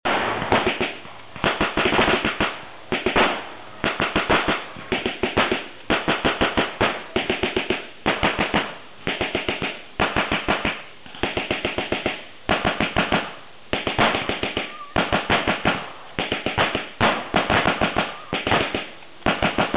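Water-cooled Vickers machine guns firing short bursts of rapid automatic fire, one burst after another with brief pauses between.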